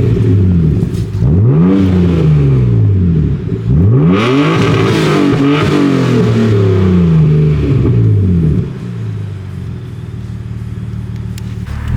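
R34 Nissan Skyline with a Tomei Expreme Ti titanium muffler, its engine revved again and again, the exhaust note climbing and falling with each blip. From about nine seconds in it drops back to a quieter, lower running note.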